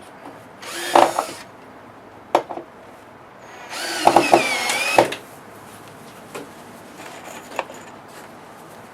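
Power drill driving screws into the fence: a short run about a second in, then a longer run of about a second and a half near the middle, its motor whine dipping and rising in pitch as it works the screw in.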